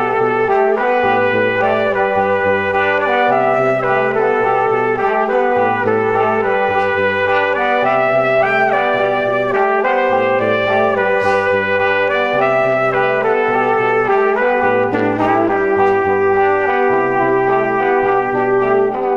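Instrumental background music, with sustained melody notes over a bass line that steps from note to note.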